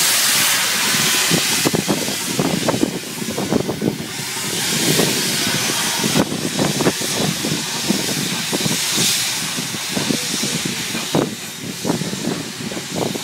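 Steam locomotive LNER A4 No. 4464 Bittern, a three-cylinder streamlined Pacific, passing with a steady hiss of steam, over irregular knocks and clanks from its wheels and the carriages behind it rolling over the track.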